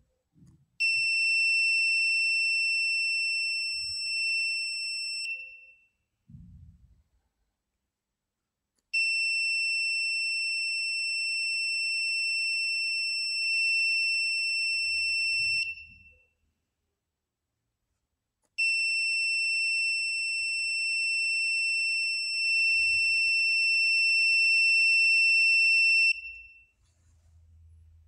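Gas alarm buzzer on an Arduino UNO sounding a steady high-pitched tone three times, each for several seconds with a few seconds' gap between. It signals that the MQ-4 sensor reads combustible gas above the alarm threshold.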